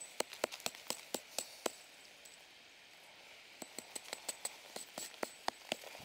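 Rock hammer's pick end chipping into soft sediment around a fossil shell, making quick, light clinking taps. Two runs of about five taps a second, with a pause of about two seconds between them.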